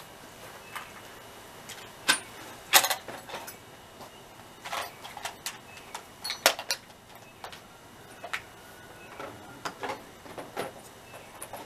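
Irregular clicks, knocks and short clatters of hands working on the sawmill's metal parts. The loudest come about two to three seconds in and again around six and a half seconds. No engine is running.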